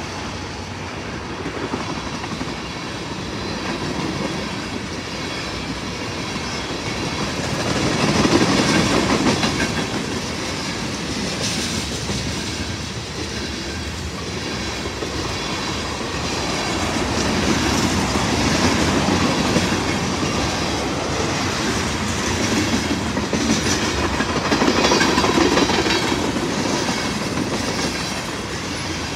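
Freight train of tank cars and covered hoppers rolling past at trackside, steel wheels rumbling and clacking steadily on the rails, swelling and easing a few times as the cars go by.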